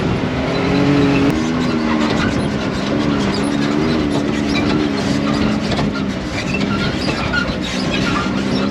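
Car driving, engine and road noise with an engine hum that rises and falls a little in pitch.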